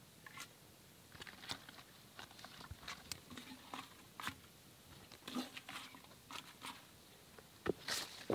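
Crisp cabbage leaves being pressed and crinkled by hand against the wet inside of an earthenware pot: a string of irregular crunches and crackles, the loudest near the end.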